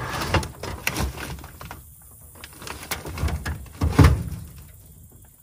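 Handling noise from a camera being carried and set down: scattered knocks, bumps and rustling, with the loudest dull thump about four seconds in.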